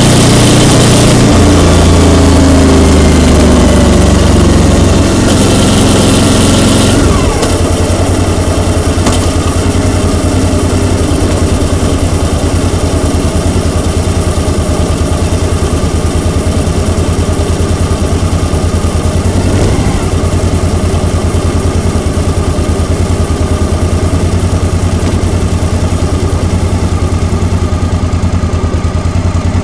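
Vehicle engine running steadily while driving, with road and wind noise on the microphone. It is louder for about the first seven seconds, then settles into a steady, slightly quieter drone.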